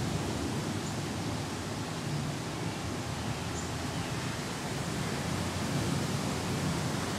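Steady rain hiss during a thunderstorm, with a low, even rumble underneath.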